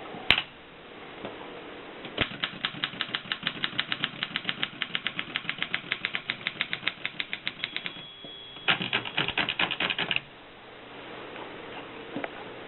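Mercedes 6 typewriter: a single key strike, then a rapid, even run of keystrokes at about nine a second for over five seconds. A short steady ring like the end-of-line bell follows, then a denser burst of loud clattering clicks for about a second and a half.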